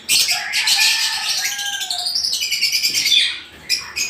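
Caged parrots chattering with rapid, high chirps, dense and loud for about three and a half seconds, then a brief lull before the chirping picks up again near the end.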